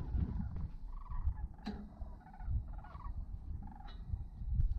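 A flock of cranes calling overhead: many short calls, one after another, over a low rumble on the microphone.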